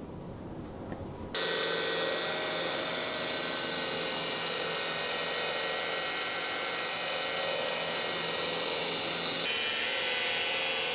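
Electric rotary buffer running steadily at about 1700 RPM, its buffing pad working paste polish into the painted steel hood of a tractor. It starts about a second in with a steady whine, and its pitch shifts slightly near the end.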